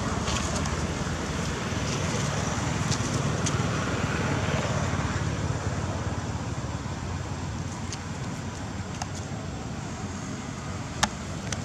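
Steady low outdoor background rumble with no clear single source, and a single sharp click about eleven seconds in.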